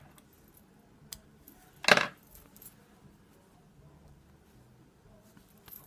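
Stacked silver bangles clinking against each other on a wrist as the hands move: one sharp clink about two seconds in, with a fainter click before it and a few light ticks after.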